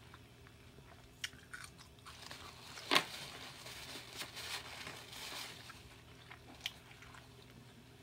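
Close-up eating sounds: chewing with crisp crunches of a raw carrot stick, the loudest crunch about three seconds in, with softer wet chewing between.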